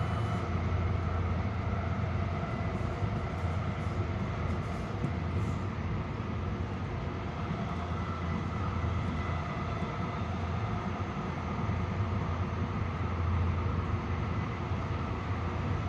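Passenger train car running at speed, heard from inside: a steady rumble of the wheels on the track with a faint, high, steady whine over it.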